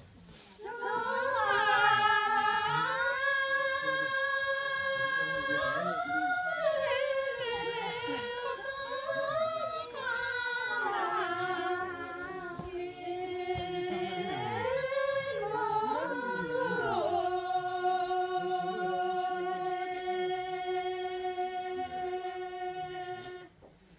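A group of women singing a slow melody in unison, unaccompanied, with long held notes joined by gliding turns. The song ends on a long held note that stops just before the end.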